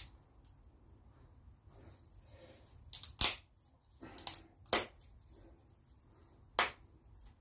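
Sharp plastic clicks and knocks from a small welding-wire spool being handled and pushed onto a spool adapter, about five in all, with the loudest a close pair about three seconds in.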